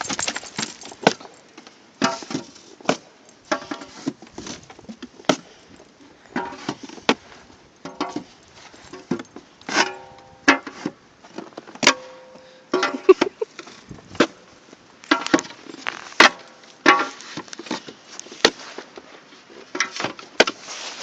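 A boxer dog's feet knocking and its claws clicking irregularly on wooden stairs, with short high whines in between.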